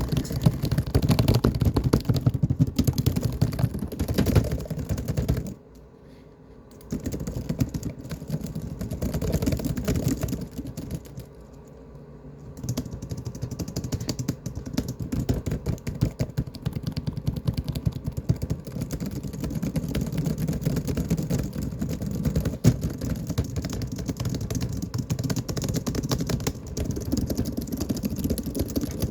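Fast typing on a laptop keyboard, a dense, rapid clatter of keystrokes broken by two short pauses, about six and eleven seconds in.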